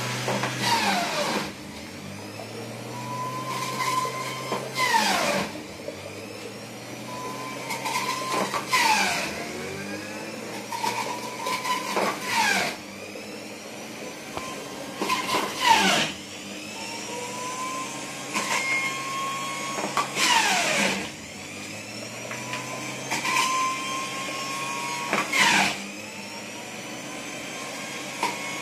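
Panasonic electric juicer's motor running, its pitch dropping as each load of peach pieces is pushed down the feed chute and climbing back as it clears, about seven times. Each drop comes with a sharp crackle of the fruit being shredded.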